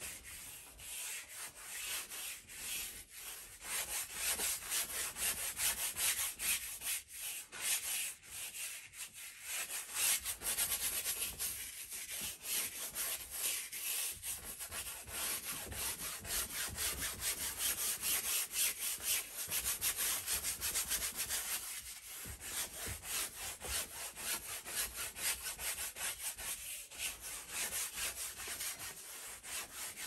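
A wide flat bristle brush scrubbing oil paint across a stretched canvas in quick, repeated back-and-forth strokes: a dry, rasping swish with brief pauses now and then.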